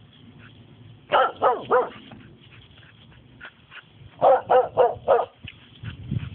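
Norwegian elkhound barking: a quick run of three barks about a second in, then four more about four seconds in.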